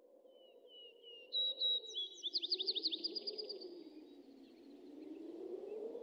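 Birds chirping, with a fast trill a couple of seconds in, over a low howling wind that slowly rises and falls in pitch, fading in from silence.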